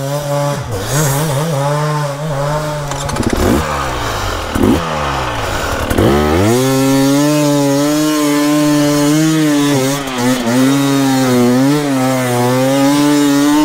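Dirt bike engine revving hard through deep mud: short blips of throttle in the first half, then held at high revs in one sustained drone from about six seconds in.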